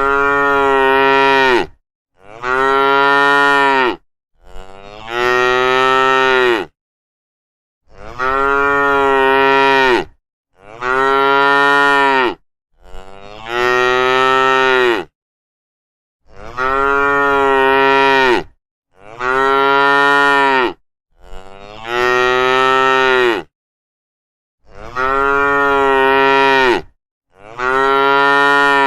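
Cow mooing loudly over and over: long, drawn-out moos of about two seconds each, coming in sets of three with short silent gaps between the sets.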